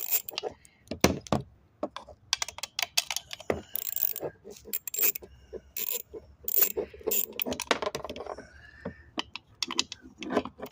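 Metal tools and chainsaw parts clinking and rattling in irregular sharp clicks as the bolts on the chainsaw's sprocket cover are worked loose.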